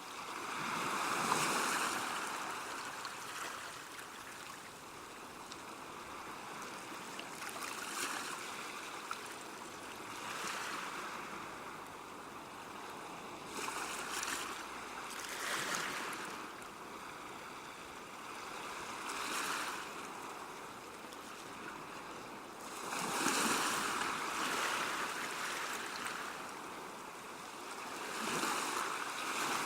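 Sea waves washing onto the shore, the surf swelling and ebbing every few seconds, with the strongest surges about a second in, about halfway through, and twice near the end.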